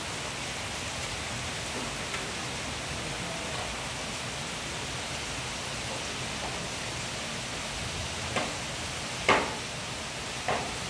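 Steady rain falling on foliage, an even hiss, with three sharper taps in the last three seconds, the loudest about nine seconds in.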